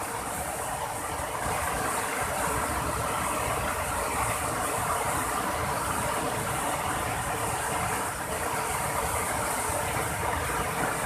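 Rushing river water: a steady, even rushing noise.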